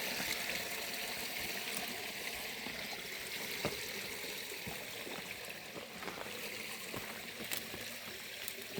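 Forest river running over stones: a steady rushing and trickling of water with a few small splashes, slowly getting quieter.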